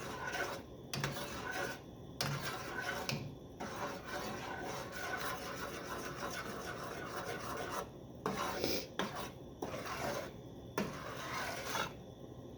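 A stirring utensil scraping around the bottom of a saucepan of melting butter for fudge, in repeated strokes with short pauses between them.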